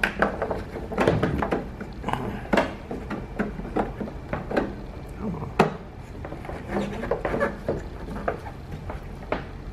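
Hard plastic clicks and knocks from a car tail light housing and its bulb sockets being handled, with a socket being slid and locked into the housing. The knocks are irregular, several of them sharp.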